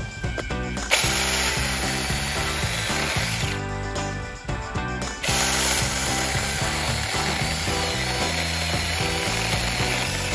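Cordless mini chainsaw with a 4-inch bar, running on a Makita-compatible battery, cutting into a log. It runs in two bursts: from about a second in to about three and a half seconds, then again from about five seconds on.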